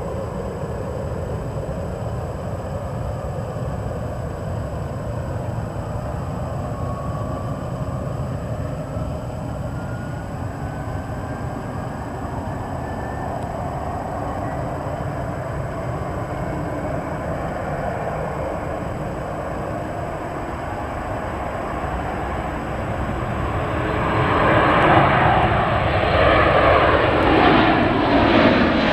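Boeing 737-400 jet engines (CFM56 turbofans) at takeoff power, running steadily with a faint whine rising in pitch. About 24 seconds in, the sound grows much louder as the jet comes close.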